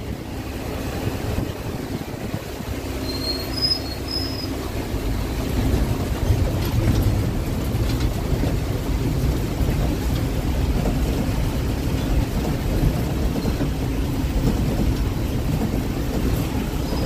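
Engine and road noise of a GSRTC Gurjarnagari bus, heard from inside the cabin while it drives, with a few short high squeaks about three to four seconds in.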